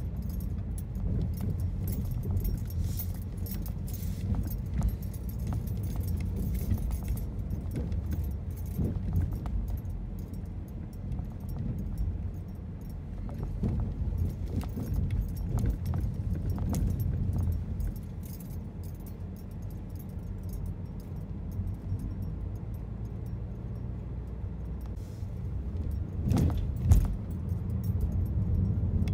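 Road noise heard from inside a moving car: a steady low rumble of tyres and engine, with frequent light rattling and jingling clicks as it goes over the street surface. About 27 seconds in there is a single sharper knock, like a bump in the road.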